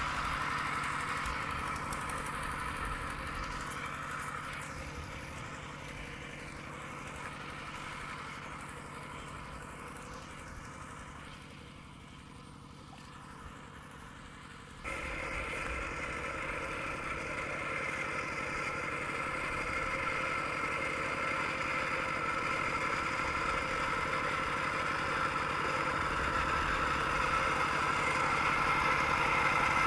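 Single-cylinder diesel engine of a Kubota RT120 two-wheel walking tractor running steadily under load as it pulls through paddy mud on cage wheels. It fades as the tractor moves off, then is suddenly louder about halfway through.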